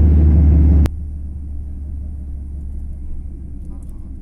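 Steady low rumble of a car's road and engine noise heard inside the moving cabin. A little under a second in, a sharp click and the rumble drops suddenly to a much quieter level, then carries on steadily.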